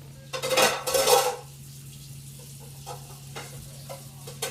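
Foil wrapper of a Kinder Surprise egg crinkling loudly as it is peeled off, for about a second near the start, followed by a few faint small clicks and rustles.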